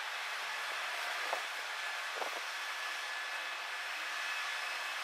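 Steady hiss with a faint high whine running through it, broken by two brief soft noises about one and two seconds in.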